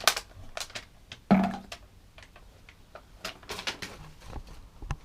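Small plastic toys and packaging being handled, making scattered clicks and taps, with one louder knock about a second and a half in.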